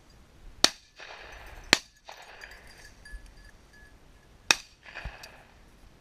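Three shotgun shots: two about a second apart, then a third about three seconds later, each sharp report trailing off briefly.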